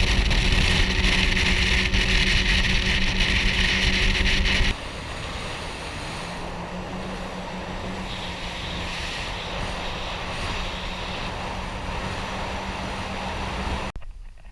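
Mercury Pro XS four-stroke outboard running a flats boat under way, a steady engine drone mixed with wind and water noise. About a third of the way in the sound drops suddenly to a quieter steady drone, which cuts off abruptly near the end.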